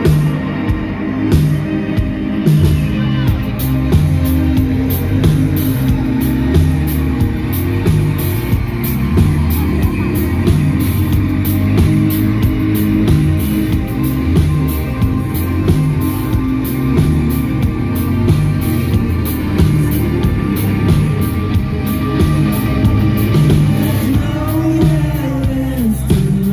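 Rock band playing live, with a repeating bass line, steady drums, guitars and keyboard.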